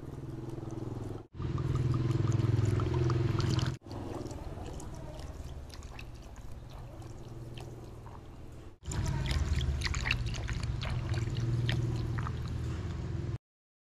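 Fish sauce pouring from a glass bottle in a steady stream into a large pot of sugar and chopped chilies. The sound breaks off abruptly three times and picks up again, then stops suddenly near the end.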